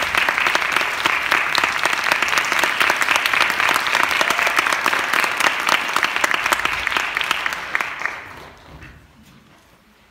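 Audience applauding, the clapping dying away about eight seconds in.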